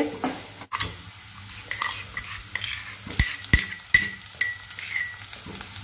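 Chopped onion frying faintly in oil in a stainless steel kadhai, with four or five sharp, ringing metal clinks against the pan about three to four and a half seconds in as crushed green chilli and garlic go in.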